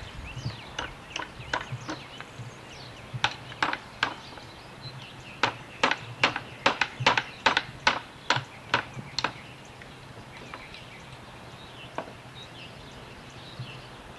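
A hammer knocking on scrap wood boards: sharp wooden knocks, a few scattered at first, then a quick run of about three a second for some four seconds, and one last knock near the end.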